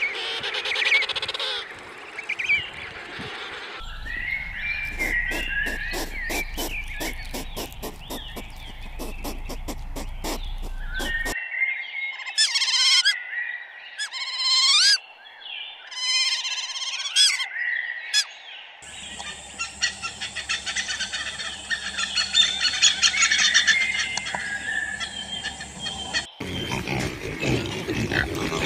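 A succession of different animal calls, each changing abruptly to the next every several seconds: a run of rapid clicking calls, then repeated sharp rising calls, then a dense, fast pattern of calls.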